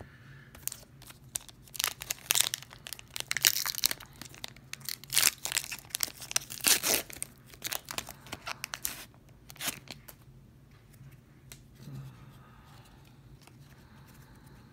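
Foil wrapper of an Upper Deck Artifacts hockey card pack being torn open and crinkled, a run of sharp crackling rips for about nine seconds. After that, quieter rustling as the cards are handled.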